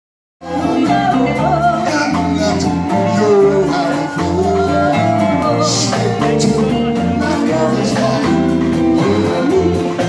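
Live band music: electric guitar, bass and a steady beat, with vocals sung into microphones over a PA. The music cuts in mid-song about half a second in.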